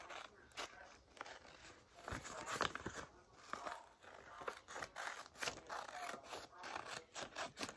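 Scissors cutting paper: a run of short, uneven snips.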